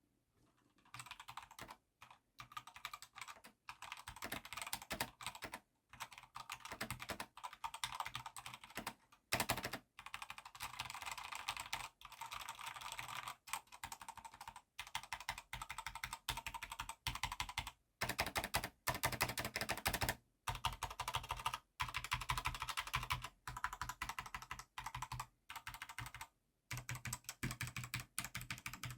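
Fast typing on a GamePower Eva 7 wireless mechanical keyboard with red (linear) switches: a dense, continuous stream of key clacks starting about a second in, broken by a few short pauses.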